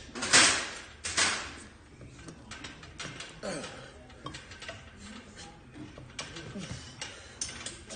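Weight-stack pec deck machine being worked through reps: clicks, clanks and rattles of the stack and its cables and pulleys, with two loud rushing bursts in the first second and a half.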